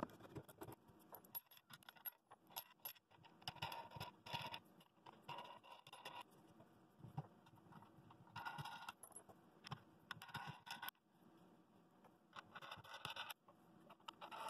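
Faint handling sounds: scattered light clicks and taps with several short scraping or rubbing passes, as the glued wooden bowl and its base are lined up and set into a bench press.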